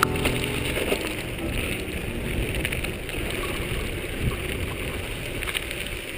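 Mountain bike riding over a rough trail: a steady rush of wind and rolling noise with scattered small rattles.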